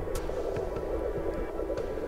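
Underwater sound picked up by a camera while snorkeling over a coral reef: a steady muffled rumble with a few sharp clicks.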